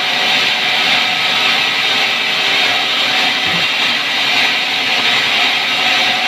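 Sawmill band saw running and ripping a pine log: a steady, high, hissing saw noise that holds at an even level throughout.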